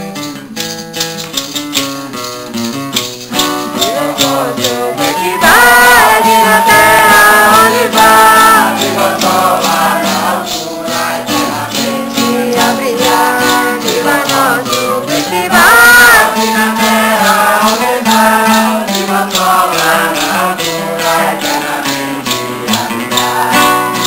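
A hymn played on acoustic guitar with a steady rhythmic maracá shake, and sung voices carrying the melody. The singing grows much louder about five seconds in and again about sixteen seconds in.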